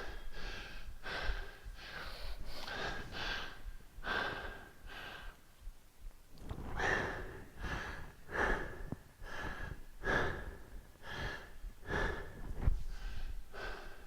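A man breathing hard under exertion, a rapid run of heavy breaths, with one short knock near the end.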